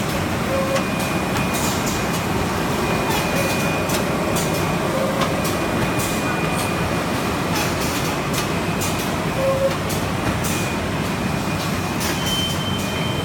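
HM-ZD350K automatic rigid box machine running: a steady mechanical din with irregular clicks and a faint steady high whine.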